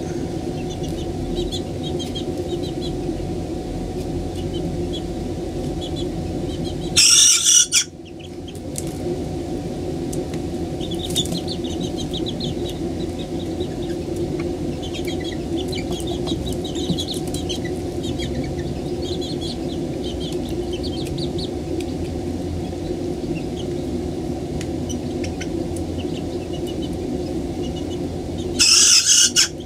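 A 6½-week-old Serama cockerel crowing twice, a short, high, immature crow about a second long each time, once about seven seconds in and again near the end. Between the crows the other chicks cheep softly over a steady low hum.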